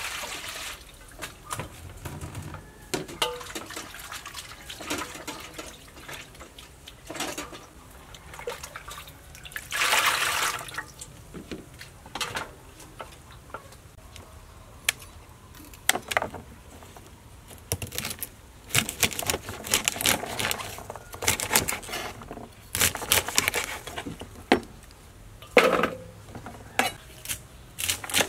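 Water poured from a plastic dipper into a stainless steel basin and splashed about as food is washed, with scattered clinks and knocks of dishes and rustling plastic bags as ingredients are handled.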